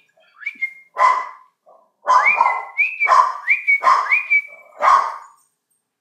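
A dog barking and whining in a quick run of short calls, about five in a row between two and five seconds in, several starting with a rising whine.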